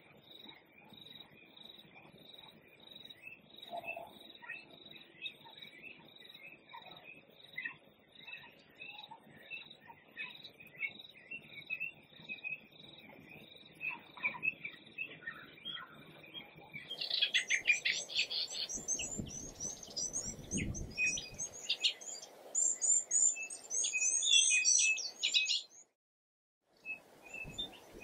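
Wild birds chirping. At first one high note repeats steadily. About two-thirds of the way through, many birds start twittering loudly and densely, and the sound cuts off abruptly shortly before the end.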